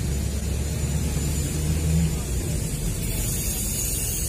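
Vehicle engine and road rumble heard from inside the cabin, a steady low drone, with a hiss that comes in about three seconds in.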